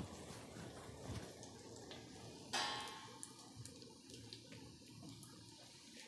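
Gram-flour onion fritters deep-frying in oil on a low gas flame: a steady sizzle with many small crackles and pops. About two and a half seconds in there is a brief louder burst as a slotted steel spoon goes in to turn them.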